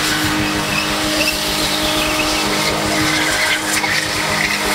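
BMW saloon drifting: its engine runs hard at a steady pitch while the spun rear tyres skid and squeal on the concrete.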